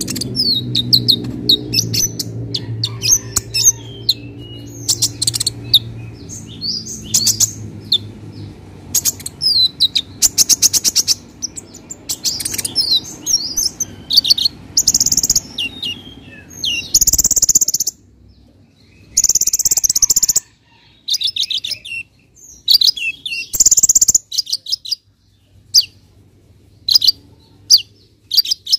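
Male Van Hasselt's sunbird (kolibri ninja) singing a fast run of high chirps and twittering notes, broken in the second half by several short, dense rattling trills. A low steady hum sits under the first half and fades out.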